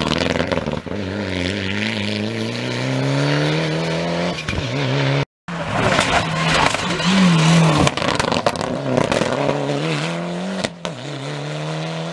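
Mitsubishi Lancer Evolution rally cars accelerating hard past one after another, the engine note climbing steadily through the gears with short dips at the shifts. The sound cuts out for an instant about five seconds in, between the two cars.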